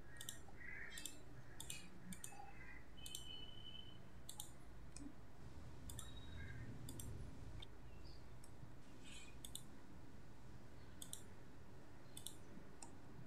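Computer mouse clicking, faint single clicks at uneven intervals, each one dropping a point on the map, over a low steady background hiss.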